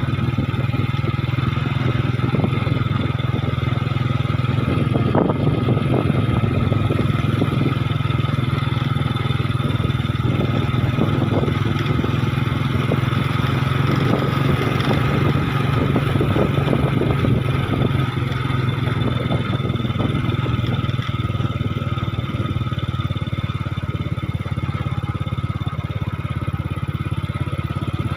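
Motorcycle engine running at a steady speed while riding, a constant low hum with steady road noise.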